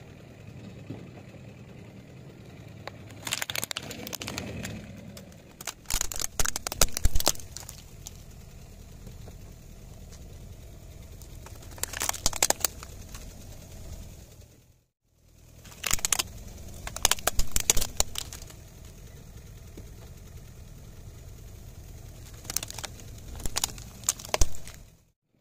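Plastic toy vehicles cracking and snapping under a car tyre on asphalt, in several separate bursts of sharp crunching cracks. Between the bursts a car engine runs low and steady.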